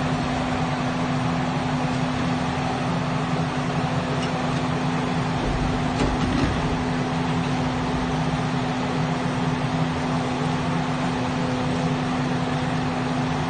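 Demolition machinery running steadily: a constant droning hum from the hydraulic demolition excavator and the water-spraying dust-suppression cannon. About six seconds in there is a brief crunch of breaking concrete.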